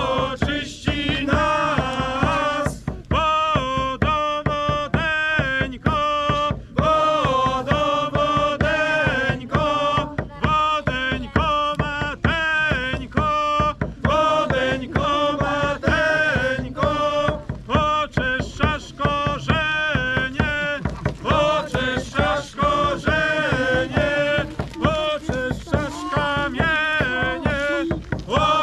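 Ritual folk chant: voices singing a melody over a steady held drone and a regular beating drum.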